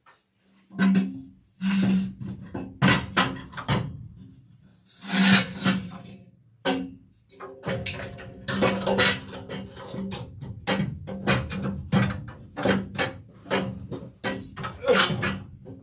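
Music with a plucked-string, guitar-like sound: held notes under many sharp percussive hits.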